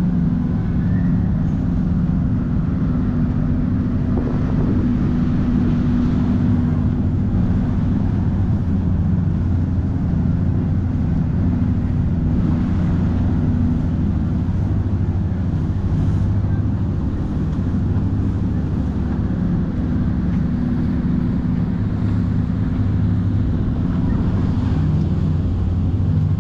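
Steady low drone of a large cruise ship's engines and generators, with a few held low tones under an even rumble.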